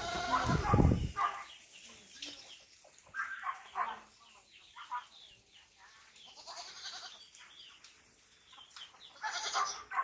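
Livestock bleating in short, repeated calls, with a loud low thump in the first second.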